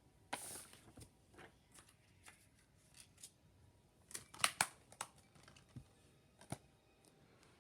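Handling of a paper insert and plastic Blu-ray case: a short rustle about half a second in, then scattered light clicks and taps, with a quick cluster of them about four and a half seconds in.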